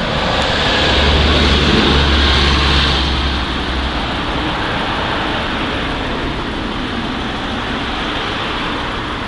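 Street traffic: a motor vehicle passes close by with a low engine rumble and tyre hiss, loudest about two seconds in, then a steady hum of passing traffic.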